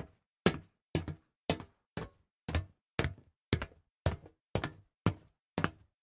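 Footsteps walking on a solid metal surface at an even pace of about two steps a second. Each step is a sharp knock with a short ringing tail.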